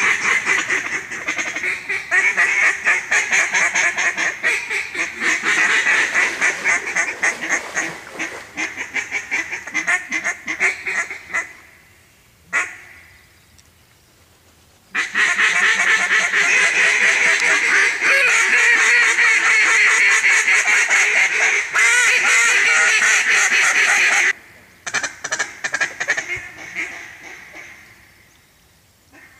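Hunters' mallard duck calls blown in a loud, fast, choppy chatter of quacks (cut-down calling) at mallards circling overhead. There are two long runs, the second starting about 15 seconds in after a short pause, and then a few sparser notes that trail off near the end.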